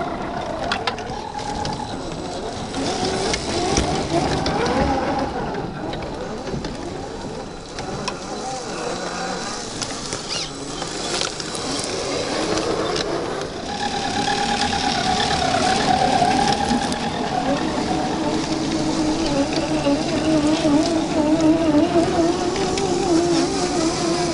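Electric drive motors and gearing of 1/10-scale Land Rover Defender 90 RC crawlers whining, the pitch wavering up and down with throttle and load as they crawl over dirt, with scattered small clicks and crunches. The whine grows louder about halfway through.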